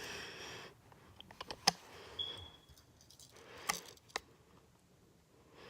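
A few sharp clicks and light knocks of a small metal pocket multi-tool being handled: a cluster of clicks about a second and a half in, then two more a couple of seconds later.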